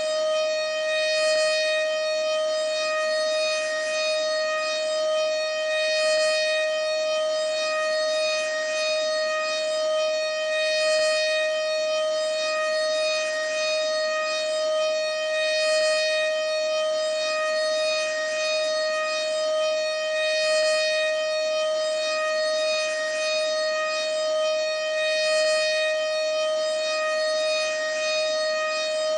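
American Signal OM-120 civil-defense siren sounding a steady, unbroken tone at constant pitch: the steady alert signal. Its loudness swells gently about every five seconds.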